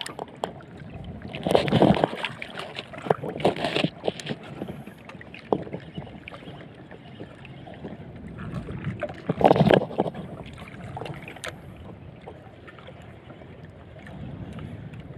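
Choppy sea waves slapping and splashing against the hull of a small outrigger boat, with wind. There are louder splashes about two, four and ten seconds in.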